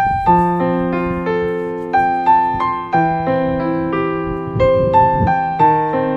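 Background music: a slow, gentle piano melody, single notes and chords struck about every half second and left to ring.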